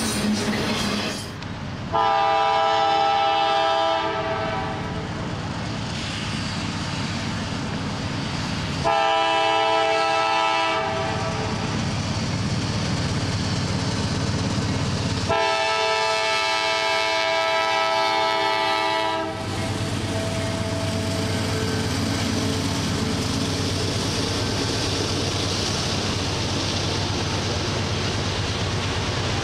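Freight locomotive's air horn sounding a chord of several notes in three long blasts, the last about twice as long as the others: the warning for a grade crossing. Then the train's steady rumble and wheel clatter as it passes over the crossing.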